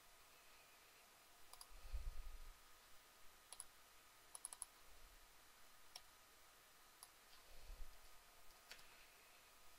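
Faint, scattered computer mouse clicks and keyboard keystrokes, with a quick cluster of clicks about four and a half seconds in. Two soft low thumps come around two seconds in and near the end.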